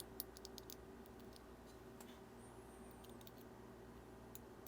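Faint, scattered small clicks of tiny watch parts being handled: a G-Shock watch module and its piezo spring. The clicks come in a quick cluster in the first second, then a few single ticks later, over near-silent room tone.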